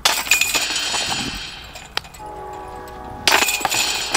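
Golf discs striking the hanging chains of a metal disc golf basket: a sudden clattering jangle of chains that rings and fades, a ringing metallic tone about two seconds in, then a second chain strike a little past three seconds.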